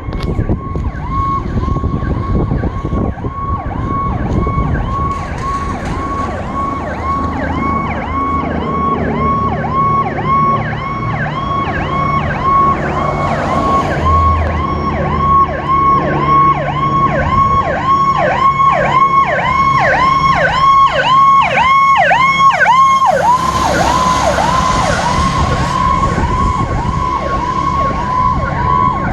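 Electronic emergency-vehicle siren on a fast yelp, its tone dipping about two and a half times a second, over the low rumble of a vehicle engine. The siren grows louder toward the middle, and a burst of hiss comes about three-quarters of the way through.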